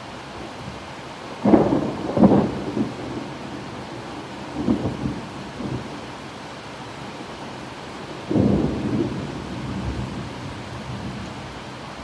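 Steady heavy rain with thunder: two sharp claps close together about a second and a half in, fainter rumbles around the middle, and another clap about eight seconds in that rolls away over the next few seconds.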